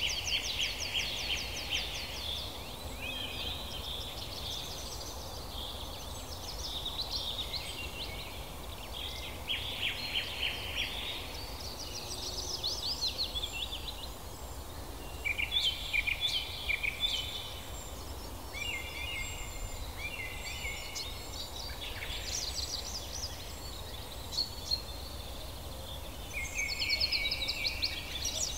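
Songbirds singing throughout, with rapid trills and short high chirps coming and going, over a steady low background noise.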